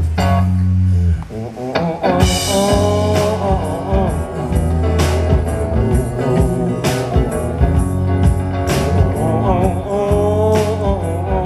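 Live rock band playing: electric guitars over a drum kit, with a man singing the melody. A cymbal crash rings out about two seconds in.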